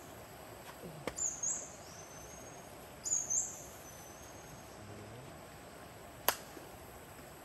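A bird calling twice, short high chirps about two seconds apart, over a steady outdoor hiss. Two sharp clicks, one just before the first call and a louder one near the end.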